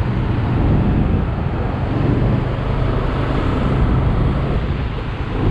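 Road traffic noise with a steady engine hum, as vehicles and motorcycles run along a busy road.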